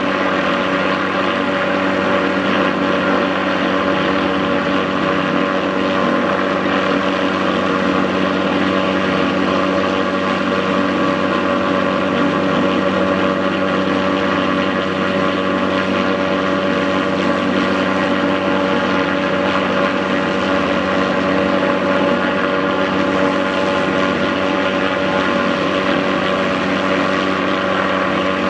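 MD Helicopters MD530F helicopter running steadily, its turbine and rotors making an even, unbroken drone with a set of steady tones.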